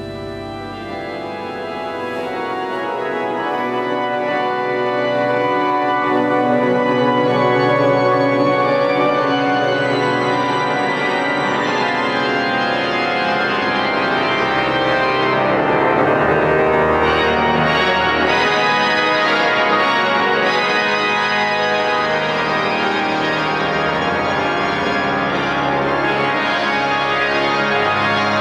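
Pipe organ playing dense, sustained chords, swelling louder over the first several seconds and then holding, with the low bass notes shifting now and then.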